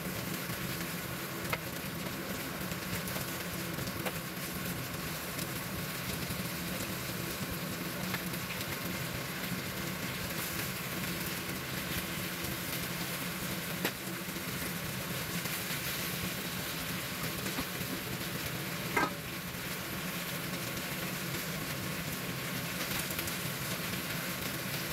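Beef cubes sizzling steadily as they brown in a frying pan, with a few light clicks as metal tongs turn them, the sharpest about nineteen seconds in.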